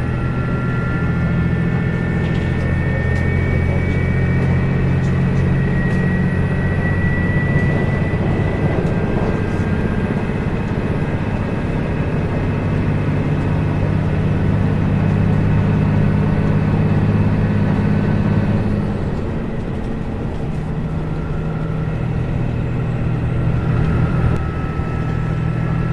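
Diesel engine running steadily with a low even drone and a thin high whine over it. Its sound drops off for a couple of seconds about three-quarters of the way through, then picks up again.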